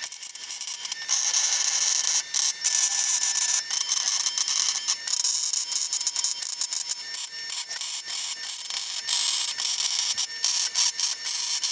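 MIG welding arc crackling and sizzling on steel roll-cage tubing in several short runs broken by brief pauses. It comes from a Longevity MigWeld 140 feeding .030" ER70S-6 wire under C25 gas onto 1.5" DOM tube.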